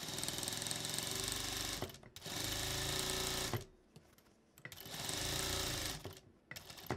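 Industrial sewing machine stitching in three runs of a second or two each, with short stops between, as it sews elastic cord onto fabric through an elastic shirring foot tightened to gather the fabric. A few light clicks come near the end.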